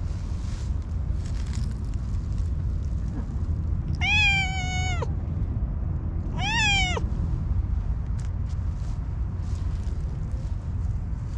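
Orange tabby cat meowing twice: a level meow about a second long, then a shorter one that rises and falls in pitch.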